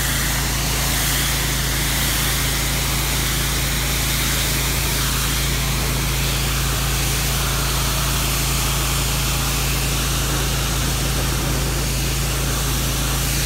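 3500 PSI, 9 GPM hot-water pressure washer blasting a driveway: a steady hiss of the high-pressure jet striking the pavement over a constant low drone of the machine's engine and pump.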